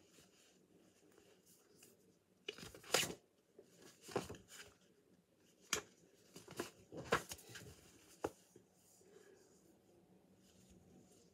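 Rustling and scraping handling noises right at the microphone, a string of short bursts with the loudest about three seconds in, as a blue fuzzy object is moved across the front of the device.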